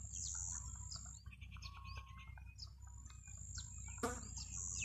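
Faint chirping and whistling of birds, with one brief louder call about four seconds in.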